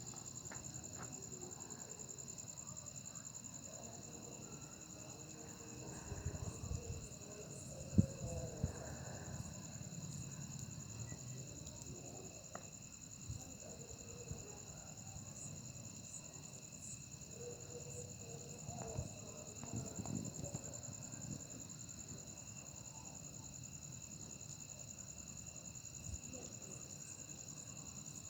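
Steady high-pitched insect chirring, with a few faint knocks and rustles scattered through the middle.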